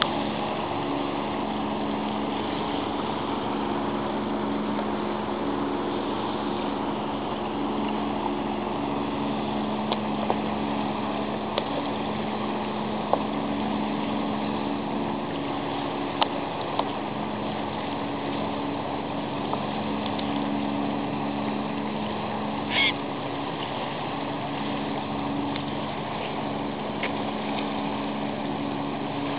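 A fishing boat's engine running steadily, a low hum over a constant wash of water and wind noise. There are a few sharp clicks and a short squeak about three-quarters of the way through.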